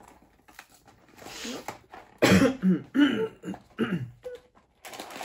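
A person coughing and clearing their throat in a few loud bursts, starting about two seconds in.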